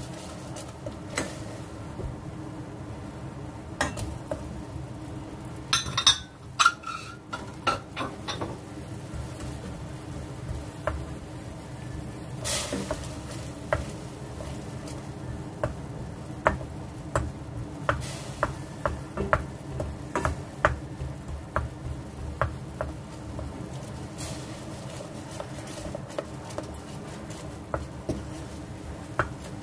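A utensil stirring in a pan, with many short taps and scrapes against the pan, and a cluster of louder ringing clinks about six seconds in. A steady low hum runs underneath.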